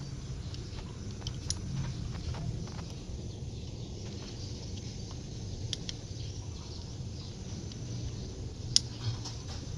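Scattered light clicks and taps of metal hand tools during fuel injector removal, the sharpest one near the end, over a low steady rumble.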